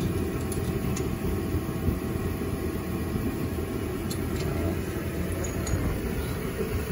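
A steady low mechanical hum, with a few faint light clicks of metal hardware as bolts are fitted into the exhaust flange.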